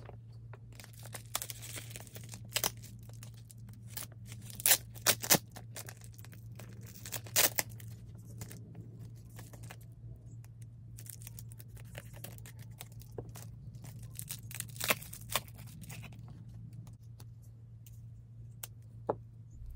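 A small mailing package being torn open by hand: irregular rips, crinkles and rustles of paper and plastic packaging, with a few louder tears, over a low steady hum.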